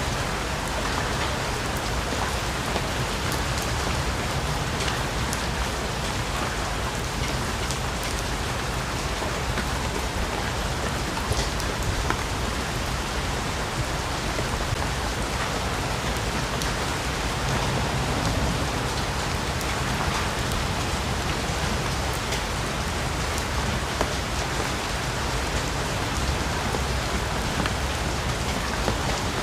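Steady rainfall in a rainforest, an even rush of rain with sharper single drops ticking here and there.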